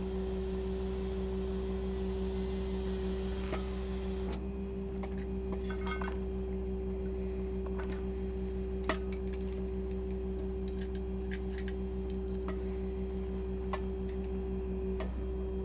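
Steady engine drone with a low hum and two steady tones, from the pump-service rig truck's engine idling, with a soft hiss that stops about four seconds in and a few faint clicks and taps.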